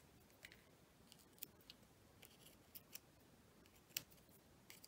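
Faint, scattered small clicks and ticks of fingers handling a paper die-cut and pressing tiny foam adhesive squares onto it, with one sharper click about four seconds in.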